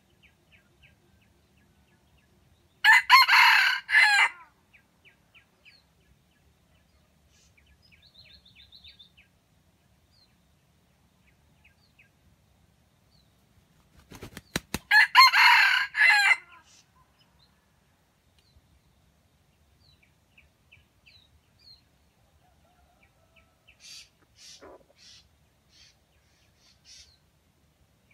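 Red junglefowl rooster crowing twice, short crows about twelve seconds apart. The second crow comes right after a brief flutter of wing-beats.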